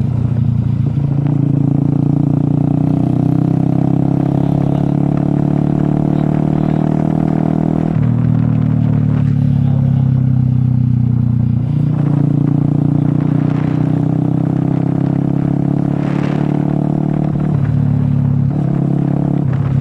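A motor vehicle engine running steadily, its pitch dropping and rising a few times as the speed changes.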